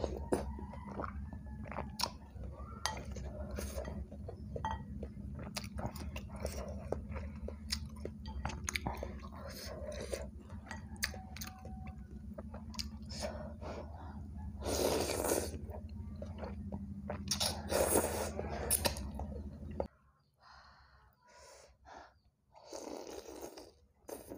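Close-miked eating of bakso noodle soup: wet chewing and mouth smacks with light clicks of wooden utensils against the bowl, and louder slurps of noodles about 15 and 18 seconds in and again near the end. A steady low hum underneath cuts off suddenly about 20 seconds in.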